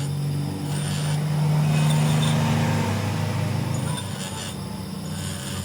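A workshop machine's motor running with a steady hum, rising a little in pitch and level for a couple of seconds, while a rasping noise of metal being worked comes and goes in short spells.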